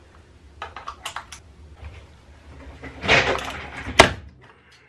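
Flat-head screwdriver prying at a plastic power bank casing: light clicks and scrapes, then a loud grinding crack about three seconds in and a sharp plastic snap about four seconds in as the case is forced apart.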